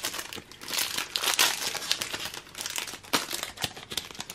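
Foil trading-card booster pack wrapper crinkling as it is handled and opened by hand, a dense run of crackles that is thickest in the first second and a half.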